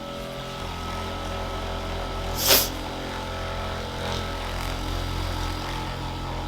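Electric percussion massager running with a steady buzzing hum. About two and a half seconds in, one short, sharp burst of sound stands out above it.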